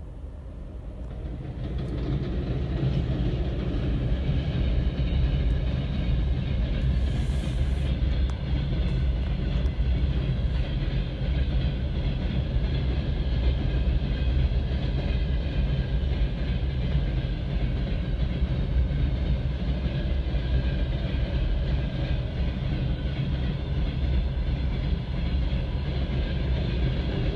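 VL15 electric freight locomotive and its train passing through at speed without stopping: a steady heavy rumble of wheels on rail, with some clickety-clack. It builds up over the first few seconds, then holds.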